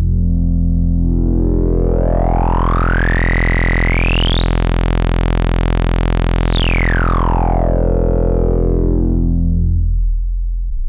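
CubuSynth Dual CS-20 VCF, an MS-20-style resonant low-pass filter, sweeping over a steady low synthesizer drone. The resonant peak rises slowly, pausing briefly partway, reaches the very top about halfway through, then glides back down until the tone is dark again near the end.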